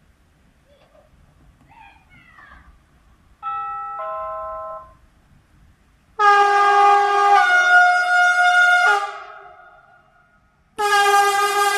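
Horn of the Siemens Vectron electric locomotive 193-394 sounding three times as it approaches. A fainter blast comes about three and a half seconds in and drops to a lower note. A long loud blast follows about six seconds in, stepping down in pitch partway through, and another loud blast starts near the end.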